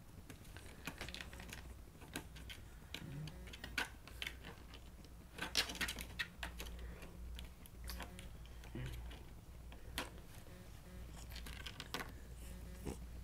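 A cat's claws tapping and scraping against the hard front of a stove as it paws at the door: quick, irregular clicks, loudest in a cluster about halfway through.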